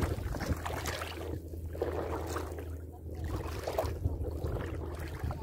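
Wind rumbling on the microphone, with shallow seawater lapping and trickling over the exposed reef flat at low tide.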